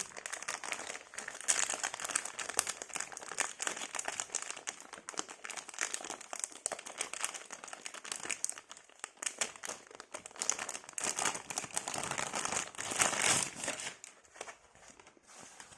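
Packaging crinkling and rustling as a pajama set is handled and unwrapped: a dense run of small crackles that eases off near the end.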